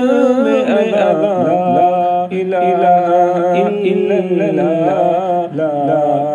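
Devotional hamd sung unaccompanied, the voice holding long wavering melodic lines over a steady low vocal drone.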